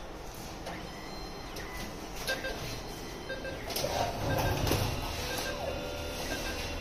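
Konica Minolta Regius CR digitizer running: a steady low machine hum with short high tones repeating about once a second, and a louder stretch of mechanical whirring about four seconds in.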